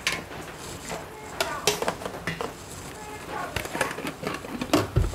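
Scattered light clicks and knocks of kitchen utensils and dishes being handled, with a few faint words a little past the middle.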